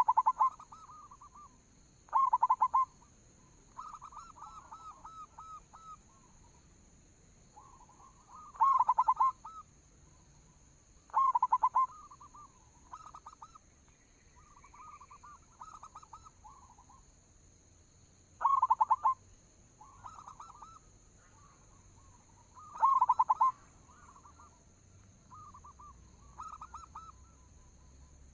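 Zebra dove (perkutut) cooing: loud, rapid trilled coo phrases every few seconds, with softer coo phrases in between.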